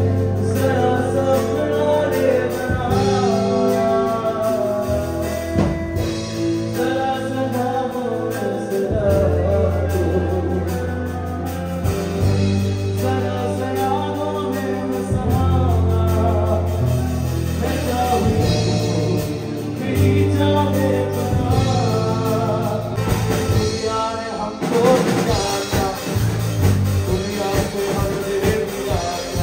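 Live band playing: a man singing into a microphone over electric bass guitar and keyboard.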